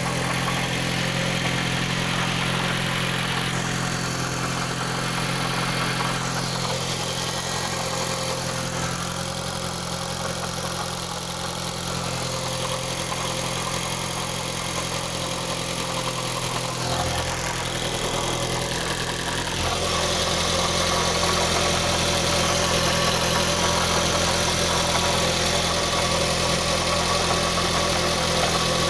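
Mitsubishi 4B11T turbocharged inline-four engine idling steadily with a knock whose source the owner cannot locate. It gets louder about 20 seconds in.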